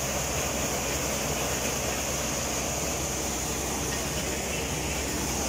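Tractor-driven maize sheller running steadily under load while cobs are fed in, powered through its drive shaft by a Massey Ferguson 260 tractor's diesel engine. A continuous dense mechanical noise with a low hum underneath, holding an even level.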